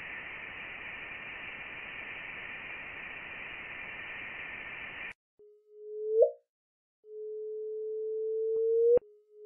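Space recordings converted into sound: a steady hiss with faint high tones, the sonified sound of interstellar space, cuts off abruptly about five seconds in. It is followed by the gravitational-wave 'chirp' of two black holes merging: a low tone that swells and sweeps up in pitch, then stops sharply. The chirp plays twice, and a third begins at the very end.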